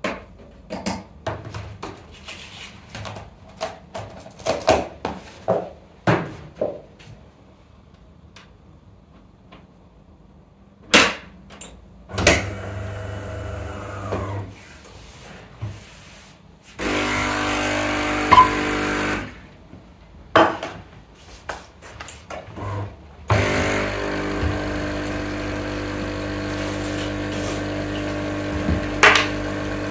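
Knocks and clicks of things being handled, then a small motor running with a steady hum: a short run of about two seconds past the middle, and a longer steady run from about 23 seconds in.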